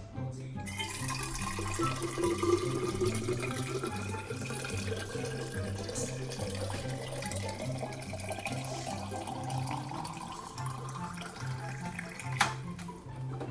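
Water running from the spigot of a refrigerator water-dispenser tank into an insulated metal bottle, the pitch of the filling rising slowly as the bottle fills. It stops with a click near the end, over background music with a steady bass line.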